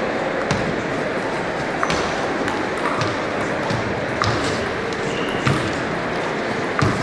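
Table tennis rally: the celluloid ball clicks sharply off the bats and the table in an irregular series of hits, roughly one every half second to a second.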